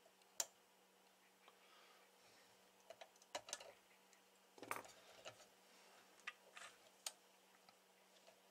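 Scattered light clicks and taps of hands handling an opened CB radio amplifier's circuit board and aluminium chassis, bunched into small groups, over a faint steady hum.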